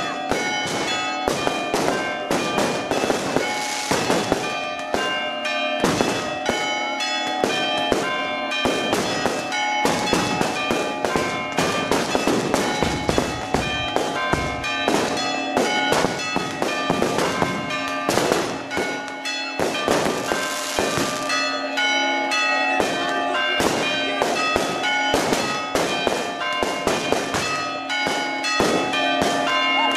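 Fireworks and firecrackers bang and crackle in a dense, continuous barrage. Church bells ring through it for the Easter Resurrection.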